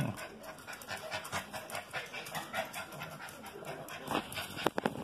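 Small dogs panting, with their claws ticking irregularly on a tile floor as they move about; a few sharper ticks near the end.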